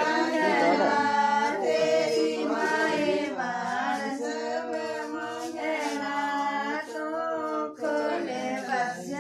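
Several women singing a song together, their voices held in long, drawn-out notes.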